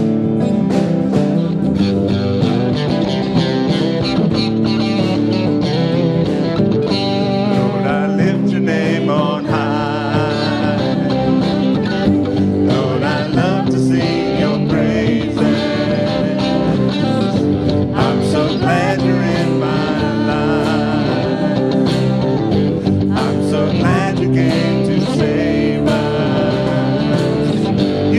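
Live worship band playing an older gospel song: acoustic and electric guitars, bass and drums, with women singing lead that comes in several seconds in.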